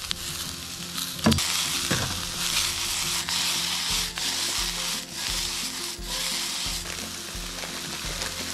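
Food sizzling in hot sesame oil in a frying pan on a portable gas camp stove as it is stirred and tossed, with a sharp knock about a second in.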